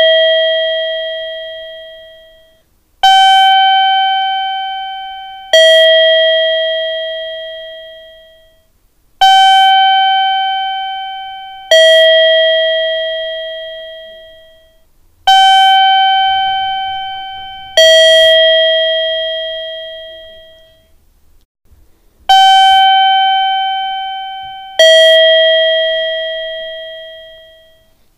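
Two-note electronic station chime: a higher ding, then a lower dong about two and a half seconds later, each note ringing out and fading away. The pair repeats about every six to seven seconds.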